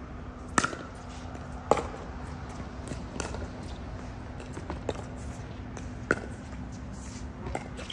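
Pickleball rally: a string of sharp pops as paddles hit the plastic ball, roughly one every second or so, the two loudest in the first two seconds, over a steady low hum.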